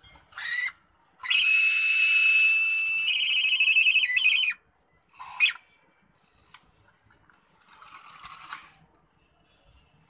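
Small electric gear motors of a homemade remote-control toy excavator whining as they drive the arm and bucket. The whine is high and comes in bursts: two short ones at the start, one long run of about three seconds, then a short one and a fainter one later.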